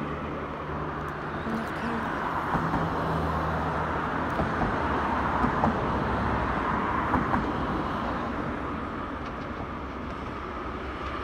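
Distant M62 (ST44) diesel freight locomotive hauling tank wagons as it approaches, heard as a steady low engine drone under a broad rushing noise, with a few faint knocks in the middle.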